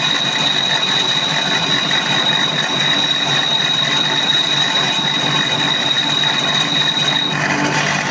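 Manual lathe running, with a steady high-pitched whine over the machine noise that stops about seven seconds in.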